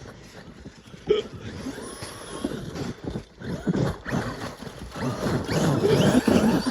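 Traxxas XRT RC monster truck running through crusty snow on paddle tyres: the electric motor whining as the paddles churn the snow, with a sharp knock about a second in and getting louder over the last couple of seconds.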